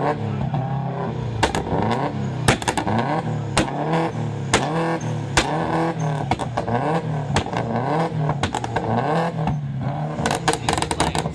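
Tuned Subaru Impreza's flat-four boxer engine revved repeatedly, about once a second, through its side exhaust, with a loud backfire bang on most revs. Near the end comes a quick string of exhaust pops.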